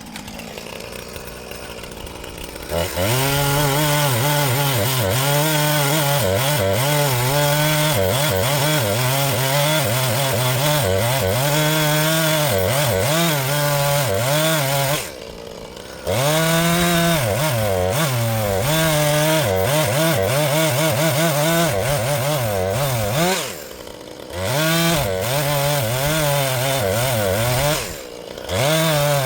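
A Husqvarna two-stroke chainsaw revs up about three seconds in and cuts into an ash tree at full throttle, its pitch sagging and recovering under load. It drops back to idle briefly about halfway through and twice near the end, revving up again each time.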